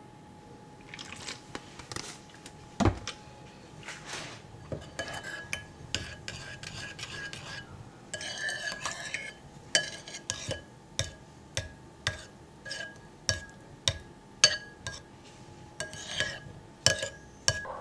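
Metal spoon clinking and scraping against a dish in a run of light strikes that come about once or twice a second in the second half. A faint steady hum runs underneath.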